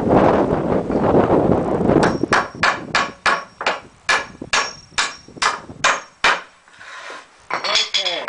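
Claw hammer driving nails into 2x4 lumber: after about two seconds of rough noise, a quick, even run of a dozen or so ringing blows, about three a second, then a couple more near the end.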